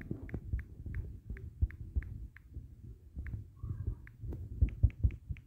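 Typing on a smartphone's touchscreen keyboard: a quick run of short key-press clicks, about two to three a second, with soft fingertip thumps on the screen and a brief pause near the middle.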